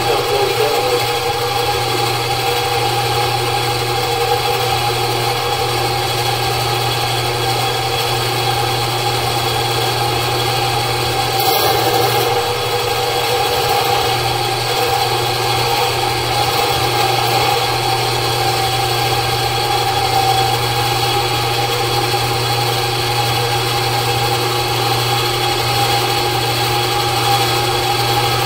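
Ridgid 1500 sectional drain machine running steadily, its motor turning the spiral cable down a cleanout into a clay main drain to cut roots.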